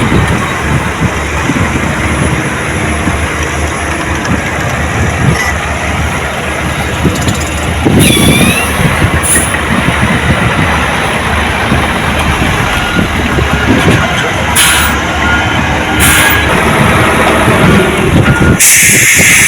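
Heavy diesel earthmoving machinery running loudly, with several short hisses and a brief high squeal about eight seconds in.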